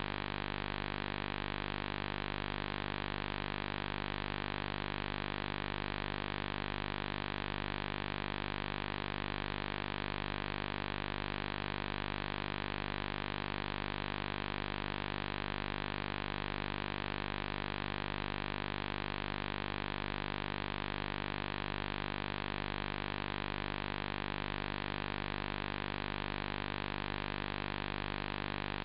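Steady hiss with a low, even hum underneath, unchanging throughout: the noise of a blank video recording with no signal.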